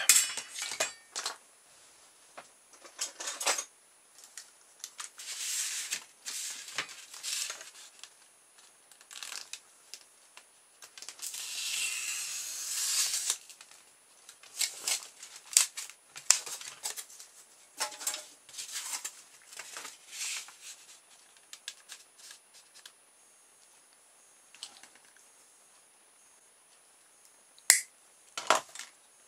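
A sharp knife cutting a polystyrene foam pizza tray along a steel ruler: short, irregular scraping strokes with pauses between them, and a longer run of scraping about halfway through. The ruler and foam are shifted between cuts, and there is a sharp click near the end.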